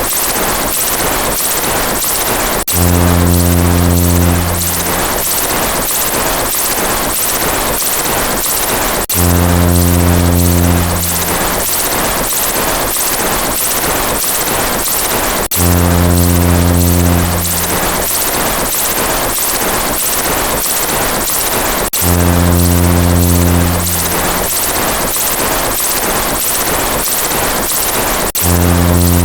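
Synthetic sound effects: a loud, rapid chopping noise pulsing about four times a second, with a low buzzing tone coming in for about two seconds roughly every six and a half seconds.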